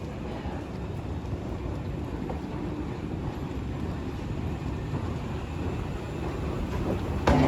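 Steady low rumble of railway station noise that slowly grows louder, with a sudden louder sound breaking in near the end.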